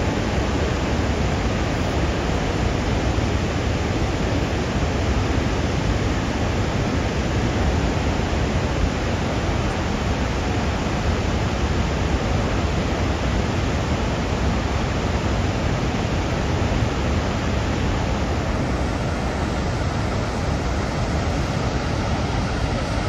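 Steady roar of a large waterfall and churning water below it, an even rush without pauses or changes in loudness.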